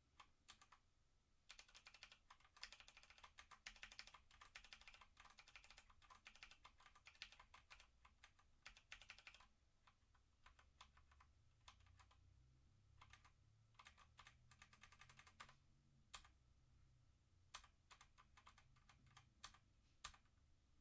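Typing on a Motospeed CK61 60% mechanical keyboard: a fast, dense run of key clicks for the first several seconds, then slower, scattered keystrokes.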